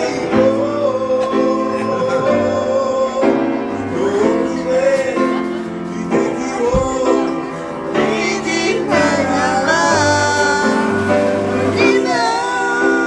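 Voices singing a slow ballad in long, wavering held notes over steady instrumental chords.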